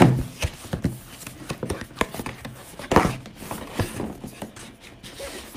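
Cardboard retail box being opened and handled: scattered taps, scrapes and rustles of cardboard and a paper leaflet. The sharpest knocks come right at the start and about three seconds in.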